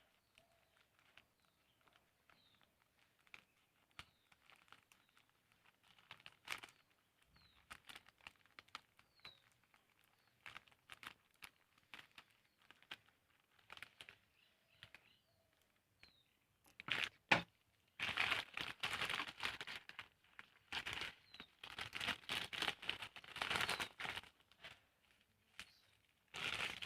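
Packaging for a mail-order parcel being handled and torn open by hand: scattered rustles and clicks, then from about two-thirds of the way in a stretch of louder crinkling and tearing.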